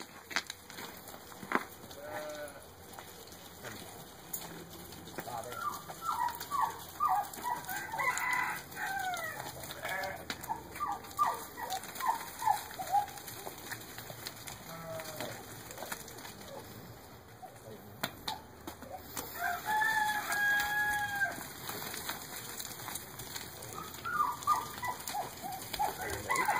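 Barnyard chickens clucking and squawking in short calls, with a rooster crowing once in a long held call about twenty seconds in, and a few sharp knocks scattered through.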